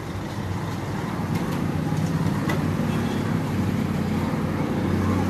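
Motorcycle engine running as it rides past on the street, over steady traffic noise, growing gradually louder.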